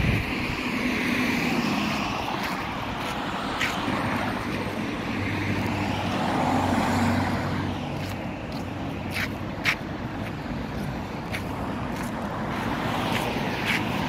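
Road traffic: cars driving past close by, their tyre and engine noise swelling as they pass, about a second in and again midway. A few sharp clicks come in the second half.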